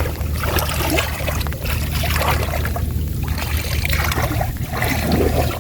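Water splashing and trickling over a steady low hum.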